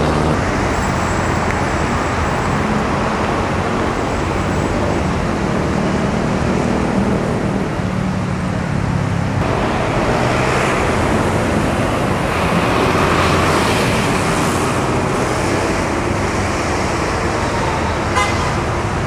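Steady road traffic noise, with vehicle engines running, and a brief click near the end.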